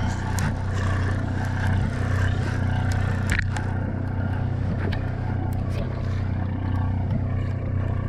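Party boat's engine running steadily with a low drone, with scattered light clicks and scrapes on deck and one sharper click about three and a half seconds in.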